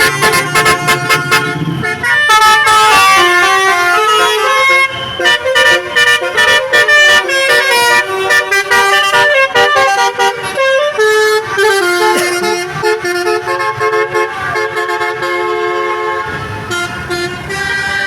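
Bus's Basuri 'telolet' musical air horn playing a melody of stepped notes, quick and choppy at first, then longer held tones. A low rumble comes in underneath near the end.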